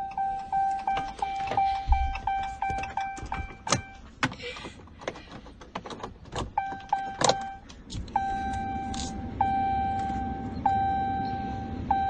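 Electronic warning chime of a 2018 Ram pickup's instrument cluster: rapid beeps about three a second, then a few sharp clicks, then from about eight seconds in a slower chime that restarts about every second and a half over a low steady hum.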